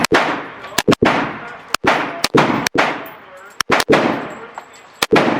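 Gunshots at a shooting range: about ten shots at an uneven pace, several in quick succession, each followed by a long fading echo.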